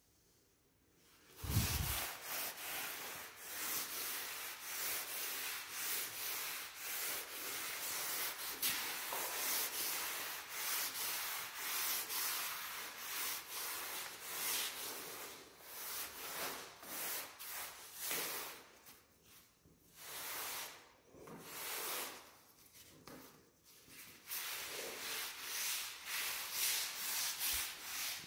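A cloth rag rubbed by hand over a hardwood floor, working colour stain into the boards: repeated swishing strokes about once a second, with a few short pauses in the last third. A low knock comes about a second and a half in.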